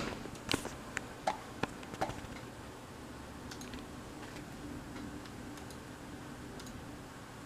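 A handful of sharp clicks in the first two seconds, then a steady low hum with faint hiss and a few faint ticks.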